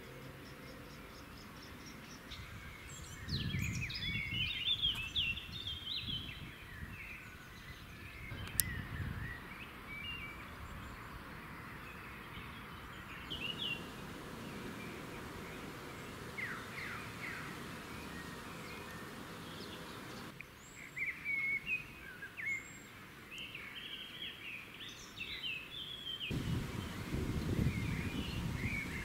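Outdoor ambience: small birds chirping and singing in short phrases over a steady low background noise, the background changing abruptly a few times.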